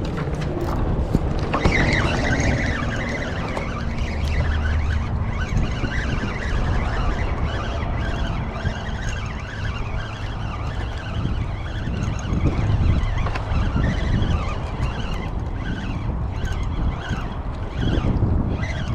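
Steady noise of road traffic, cars going by on a highway.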